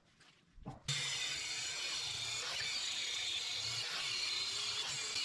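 Steady rushing, hissing noise from shop work on a spring-steel knife blank, starting suddenly about a second in and holding level.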